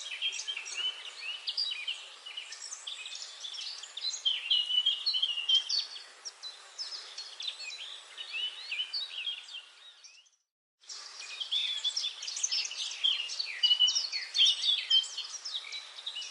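Forest dawn-chorus style recording: many songbirds chirping and trilling at once over a steady background hiss. About ten seconds in the sound cuts out completely for about half a second, then the birdsong resumes.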